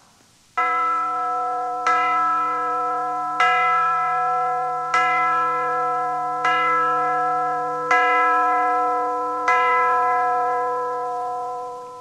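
A clock chiming seven o'clock: seven bell-like strikes about a second and a half apart, each ringing on into the next, with the last one fading away near the end.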